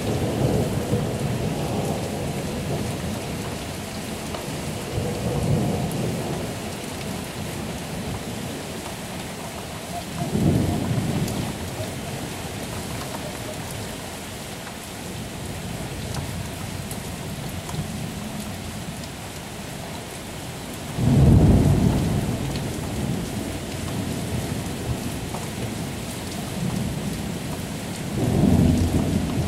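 Steady rain falling, with several low rumbles of thunder swelling and fading over it; the loudest thunder comes about two-thirds of the way through, with others near the start, about a third of the way in, and near the end.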